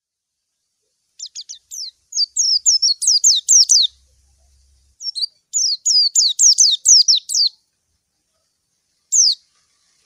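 White-eye (pleci) song: two quick runs of high, sharply falling chirps, each lasting a couple of seconds, then a single chirp near the end. It is the challenge song a pleci uses to call a rival.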